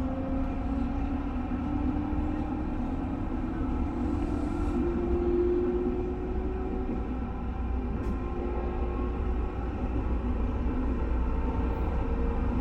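221 series electric train running on the rails, a steady low rumble with a traction-motor whine that rises slowly in pitch over the first half as the train picks up speed, then holds.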